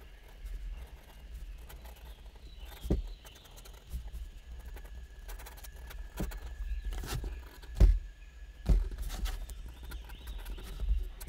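Pen drawing quick strokes on paper, with irregular knocks and taps of the pen and hand against the paper and desk.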